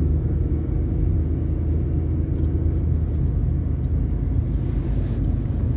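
Steady low rumble of a car's engine and tyres heard from inside the cabin while driving along a town road, with a brief faint hiss about five seconds in.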